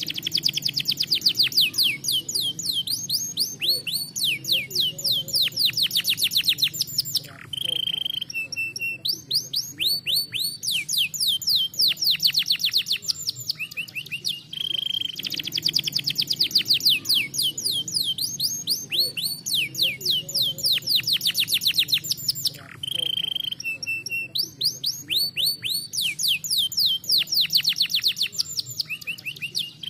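Domestic canary singing: long rolling trills of rapid falling notes, broken about every seven seconds by a short, steady held whistle.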